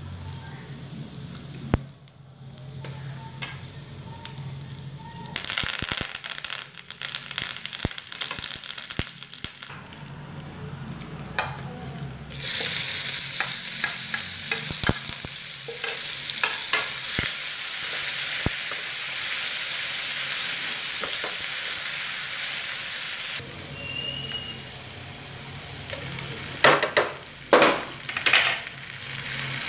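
Hot oil sizzling in a non-stick frying pan as spices and chopped onions fry for a dal tadka. About twelve seconds in the sizzle jumps to a loud, steady hiss as the chopped onions go into the oil, then eases off for the last few seconds, with taps and scrapes of utensils on the pan near the end.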